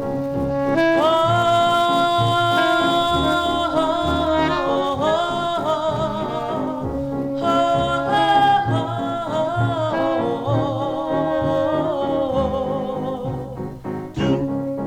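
Slow 1950s doo-wop ballad played from a 78 rpm record: the intro, with held group harmonies over a small band, the chords changing every second or two.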